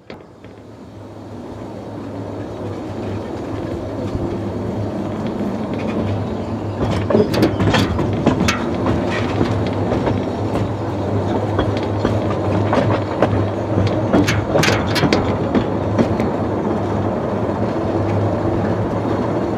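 Narrow-gauge mine locomotive running along the track, with a steady low hum and irregular clicks and knocks as the wheels pass over rail joints and points. The sound grows louder over the first few seconds.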